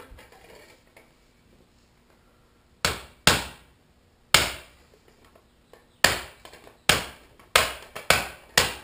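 Hammer striking the top of a plastic pipe used as a seal driver, tapping a fork oil seal down into a motorcycle fork leg to seat it. Eight sharp knocks: two about three seconds in, one more a second later, then five quicker ones near the end.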